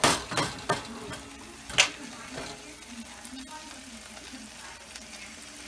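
Salmon fillet frying in a nonstick skillet, a steady sizzle as avocado oil is poured over it. A few sharp knocks come in the first two seconds, the loudest about two seconds in.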